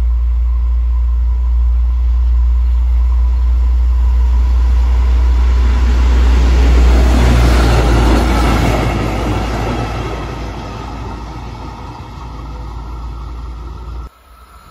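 Self-propelled rail maintenance vehicle running along the track: its engine and wheel noise swells as it passes close by about eight seconds in, then fades as it pulls away. The sound drops off abruptly near the end.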